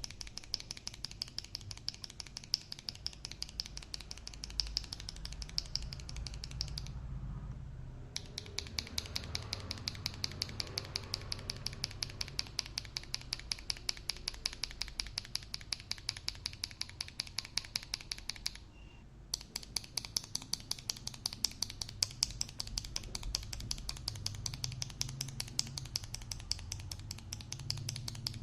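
Stock, unlubricated linear mechanical keyboard switches, each with only a keycap fitted and not mounted in a keyboard, being pressed and bottomed out repeatedly in quick succession. The clicks come in three runs, with short breaks about 7 and 19 seconds in: the Akko CS Jelly Black set against the Akko CS Matcha Green and the Gateron Pro Yellow.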